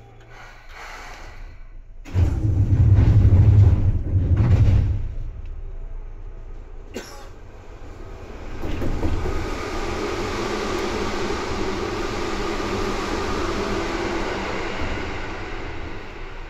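Interior running sound of a Seibu 2000 series electric train. A heavy low rumble comes about two seconds in and lasts a few seconds, there is a sharp click near seven seconds, and from about eight seconds a steady running noise with a low hum sets in and holds.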